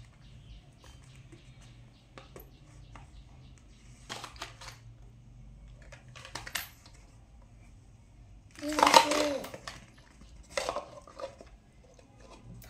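Plastic toys knocking and clattering as they are handled, with scattered sharp clicks. About nine seconds in comes a louder pitched squeal lasting about a second, followed by a shorter burst.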